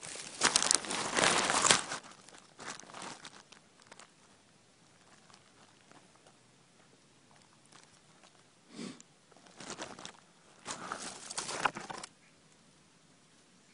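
Irregular rustling and scrabbling from a cat hunting a mouse, crinkly like dry litter or paper. It comes in two loud spells, one over about the first two seconds and another around eleven to twelve seconds in, with short scuffles between.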